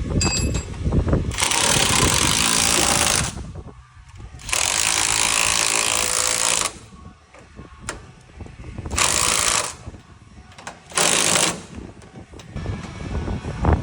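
Power tool run in four abrupt bursts, the first two about two seconds each and the last two under a second, used to take off or fasten guards and sections on a combine header's cutter bar.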